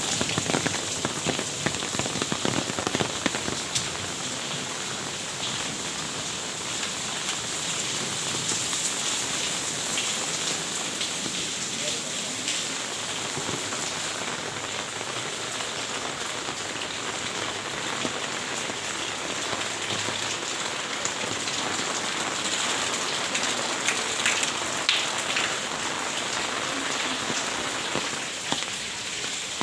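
Steady rain pattering on a surface, many small drop impacts over a continuous rushing hiss, slightly heavier in the first few seconds.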